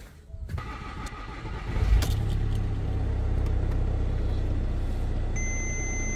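VW Crafter turbo-diesel engine cranking and catching about two seconds in, then idling steadily at around 1,000 rpm, being started to check whether the turbo fault has cleared. A dashboard warning beep sounds near the end.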